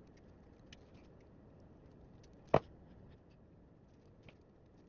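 Small metal clicks and faint ticks of pliers crimping a tiny fan-header terminal onto a wire, with one sharp click about two and a half seconds in.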